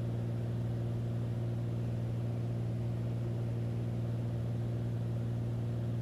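Beechcraft A36 Bonanza's piston engine and propeller droning steadily, heard from inside the cabin, with a constant low hum.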